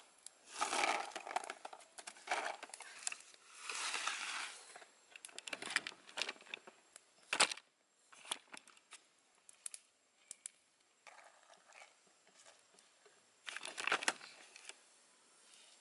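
Banana leaves rustling and crinkling as they are handled, in irregular bursts broken by sharp clicks and taps. The loudest snap comes about halfway through, and a quick cluster of crackles comes near the end.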